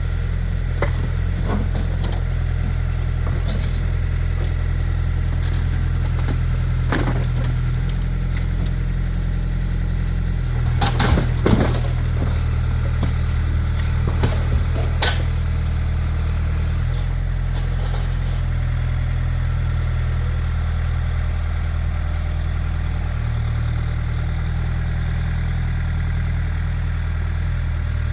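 Case IH farm tractor engine running steadily at a low, even speed, its pitch shifting slightly a few times. A few sharp knocks break in, a cluster about eleven seconds in and another near fifteen seconds.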